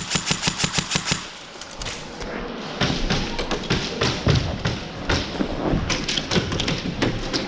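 Airsoft guns firing on full auto: a rapid, even string of shots, about ten a second, for the first two seconds. From about three seconds in there is a denser, more ragged clatter of shots and knocks.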